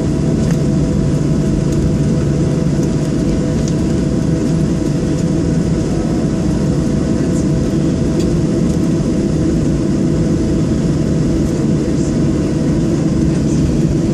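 Cabin noise inside a Boeing 737-700 taxiing after landing: its CFM56 jet engines running at idle, a steady low rumble with a steady hum above it.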